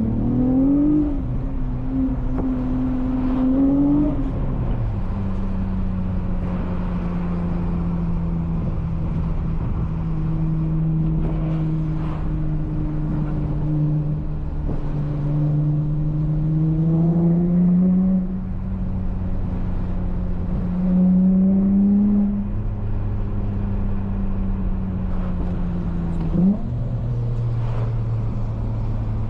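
The 3.2-litre J32A3 V6 of a manual Honda Accord coupe, heard through a loud Skunk2 MegaPower single-exit exhaust, driving under load. The engine note climbs and falls with the throttle, with a few drops in pitch that mark gear changes and a short sharp rev near the end.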